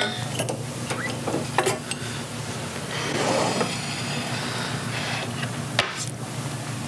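Spoons clinking and scraping against a saucepan as caramel topping is stirred and spooned out, with scattered small taps and one sharper tap near the end, over a steady low hum.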